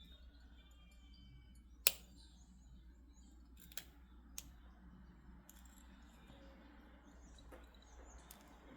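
Sharp clicks of small hard items being handled while a crystal bead bracelet is restrung: one loud click about two seconds in, then two fainter ones a couple of seconds later, over a faint steady hum.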